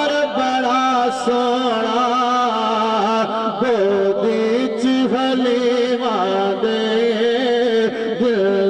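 A man singing a Punjabi naat into a microphone through a PA, drawing out long held notes that waver and bend in pitch without breaking into words.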